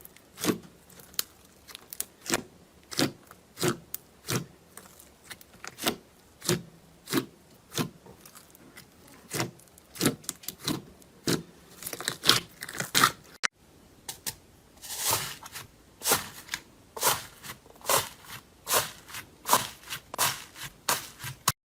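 Slime being squished and pressed, giving a run of short crackling, crunching pops at about one to two a second, with a brief break about two-thirds through.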